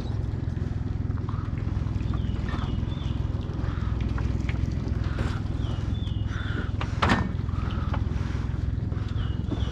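Small boat's outboard motor idling steadily. A bird calls three times, each a short phrase of two or three whistled notes, and a single knock sounds about seven seconds in.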